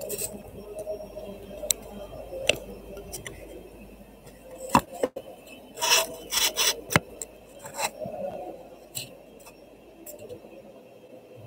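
Handling noise from the recording camera or phone as it is repositioned: rubbing and rustling with scattered sharp clicks and knocks, busiest about halfway through.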